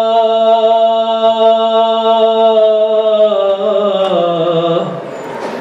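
A man singing Gurbani kirtan in chant style, holding one long note that steps down in pitch about three seconds in and fades near the end.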